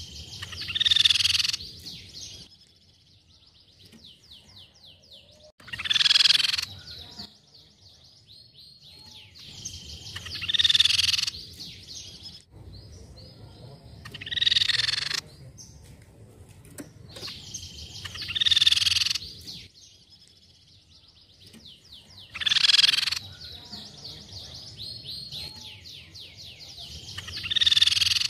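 Crescent-chested babbler (tepus pipi perak) singing: seven loud ringing phrases, one about every four to five seconds, each about a second long, with a fast, dry trilling chatter between them.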